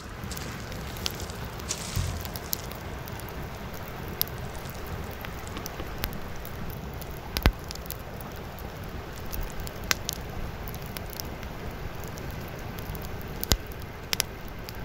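Small wood campfire crackling, with scattered sharp pops over a steady hiss; the loudest pop comes about halfway through.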